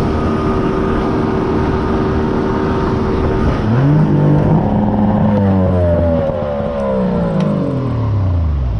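Boat's outboard engine running hard. It revs up sharply about three and a half seconds in, then its pitch falls steadily over the last few seconds as the throttle comes off.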